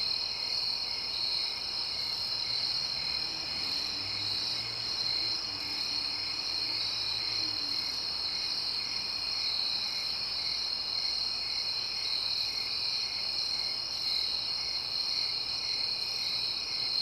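Night insect chorus, crickets chirping steadily: a continuous high trill, with a pulsed chirp repeating about twice a second beneath it.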